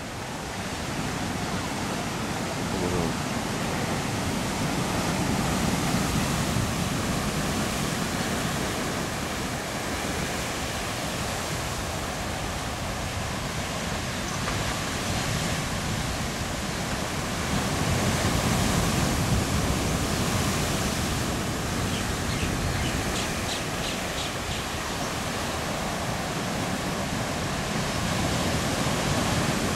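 Ocean surf breaking and washing over lava rocks: a steady rush of white water that swells as bigger waves come in, most around the middle and near the end.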